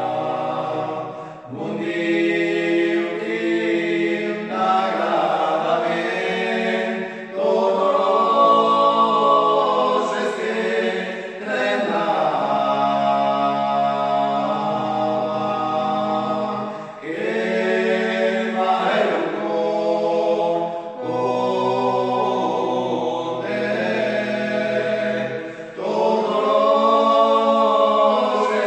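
Four men singing a cappella in close harmony, a song in Occitan. Long held phrases over a steady low bass note, with a brief breath break every few seconds.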